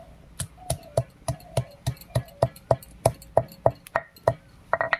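Stone pestle (nora) pounding whole garam masala spices on a flat stone grinding slab (shil), with steady sharp knocks of stone on stone about three and a half times a second and a quicker cluster of hits near the end.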